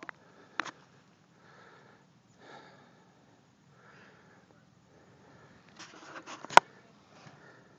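A person breathing close to the microphone, a soft breath every second or so. About six seconds in comes a quick cluster of clicks and knocks, ending in one sharp, loud click.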